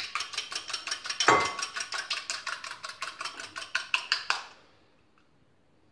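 Wire whisk beating an egg in a small bowl: rapid, even metallic clicks against the bowl, about six a second, with one louder ringing clink about a second in. The beating stops a little past four seconds.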